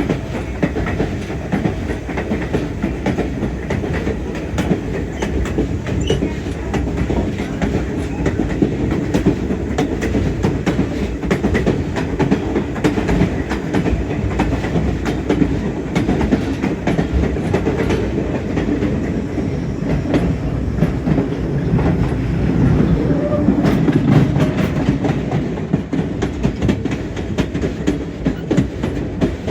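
White Pass & Yukon Route narrow-gauge passenger train rolling along, heard from aboard: a steady low rumble of the cars with the wheels clicking irregularly over the rail joints.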